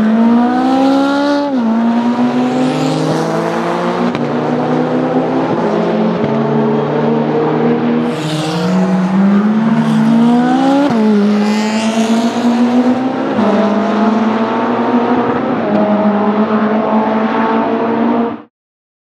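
Ferrari 458 Speciale's naturally aspirated V8 under hard acceleration, its pitch climbing and dropping back at each gear change, several times over. The sound cuts off suddenly near the end.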